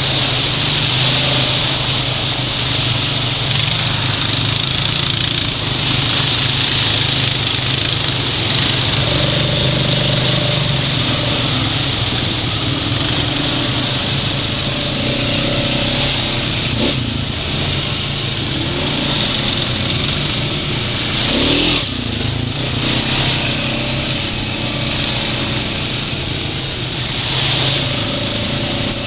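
Honda Rancher 420 ATV's single-cylinder four-stroke engine running steadily while riding a dirt trail, under a constant hiss. A couple of brief louder knocks come in the second half.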